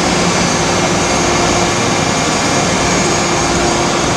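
Steady drone of running machinery: a low hum under a broad, even hiss.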